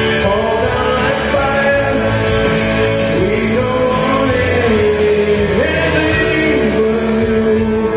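Worship band music with a sustained, gliding vocal or lead line over steady instruments and beat.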